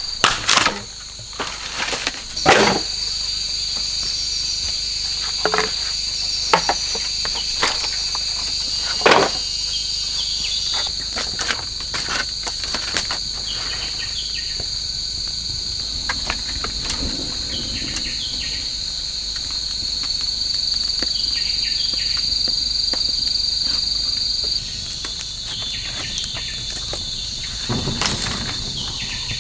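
Chorus of forest insects: a steady high-pitched buzz, with scattered sharp knocks and clicks over it.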